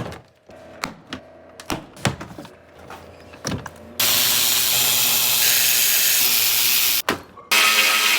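Scattered light clicks and knocks, then a loud steady hiss that starts suddenly about four seconds in, lasts about three seconds, and comes back briefly near the end.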